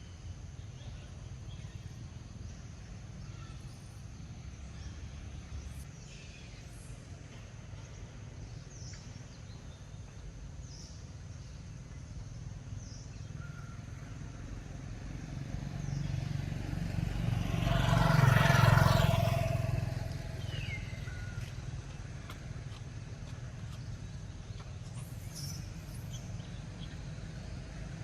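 A motor vehicle passing by. It builds up, is loudest about two-thirds of the way in, then fades, over a steady low outdoor rumble with a few faint high chirps.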